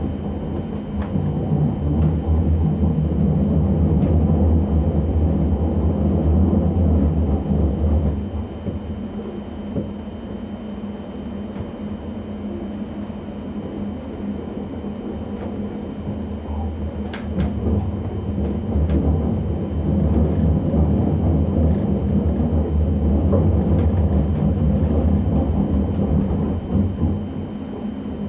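ČD class 640 RegioPanter electric multiple unit running along the line, heard from inside the cab: a steady low rumble that swells louder twice and eases off in between, with a faint steady high whine and a few faint clicks about two-thirds of the way through.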